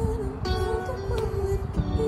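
Rock song playing: a wavering melody line and held tones over guitar and a steady beat.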